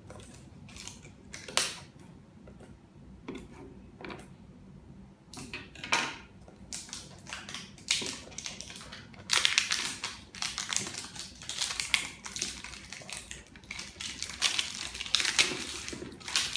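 Sealed cardboard box being cut and pulled open: scattered clicks and short scrapes of scissors working along the seal, then, from about nine seconds in, denser scraping and rustling of cardboard and tape as the box is opened.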